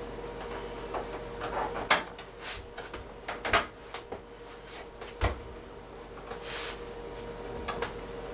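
Hands handling and fitting washer parts: a few sharp clicks and knocks, the loudest about two, three and a half and five seconds in, with short scraping rustles between them, over a faint steady hum.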